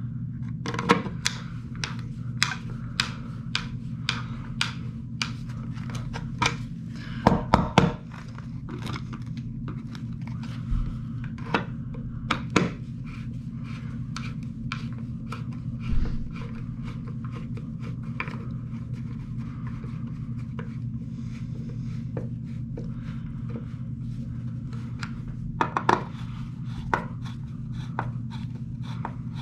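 Hand screwdriver turning the clamp screws of old-work electrical boxes in a drywall ceiling, giving a string of small sharp clicks and ticks. There is a cluster of louder clicks about seven seconds in and a single thump about sixteen seconds in.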